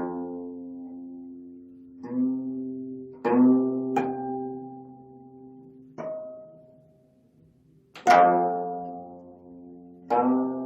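25-string gayageums playing sparse plucked notes and chords at uneven intervals, each left to ring and fade away. The loudest chord comes about eight seconds in.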